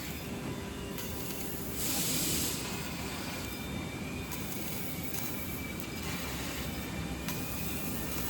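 Ironwood IR-3015F 3000 W CNC laser cutter cutting sheet metal: a steady hiss from the cutting head with the machine running underneath, swelling into a louder burst of hiss about two seconds in.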